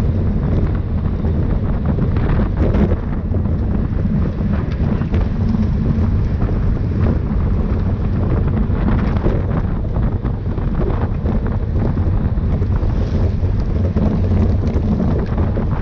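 Wind buffeting the microphone of a camera carried on a bicycle at race speed, a steady, loud rumble.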